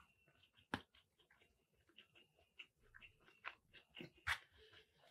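Faint close-up chewing of a mouthful of jollof rice, with scattered small mouth clicks. About four seconds in, a short louder scrape or knock as the metal spoon goes into the foam takeout box.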